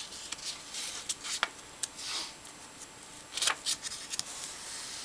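Sheet of origami paper rustling and crackling as hands handle and fold it, in scattered short crackles with a longer rustle about two seconds in and again about three and a half seconds in.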